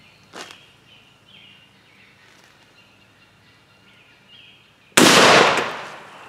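A single-shot shotgun, its barrel poured full of gasoline, firing once about five seconds in: one sudden loud blast that fades away over about a second. Faint birdsong before it.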